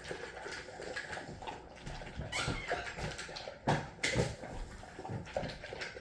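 A dog eating its dinner: irregular wet chewing and smacking sounds, with one sharper knock a little past halfway.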